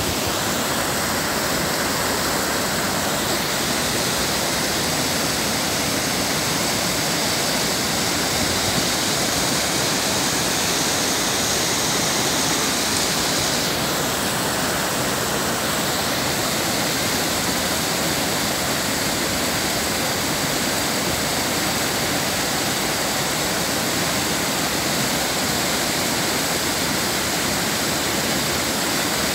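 Floodwater rushing down a street and pouring over a low ledge: a steady, continuous rush of falling water.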